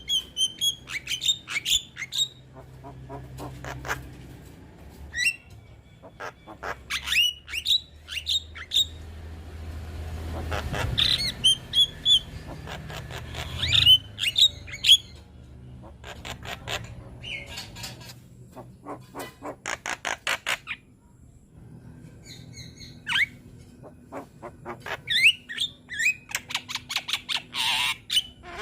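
Young Javan myna singing a busy, varied song: rapid clicking rattles, harsh squawks and short whistled notes that glide up and down, with a brief pause about two-thirds of the way through.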